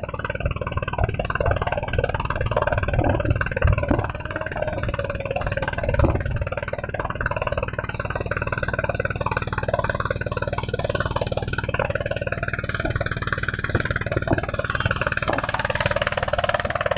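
Engine of a kelotok, a small wooden motorboat, running steadily with an even hum and a noisy wash over it.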